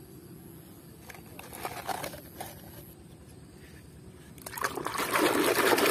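A muddy plastic toy car being rinsed by hand in shallow muddy water: faint trickling and small knocks at first, then loud splashing and sloshing starting about four and a half seconds in.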